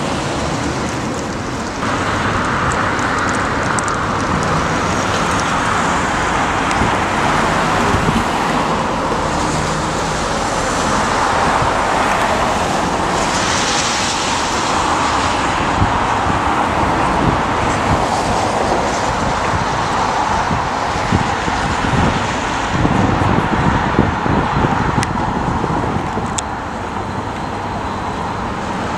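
City road traffic: cars and buses passing on a wide multi-lane road, a steady rush of tyre and engine noise.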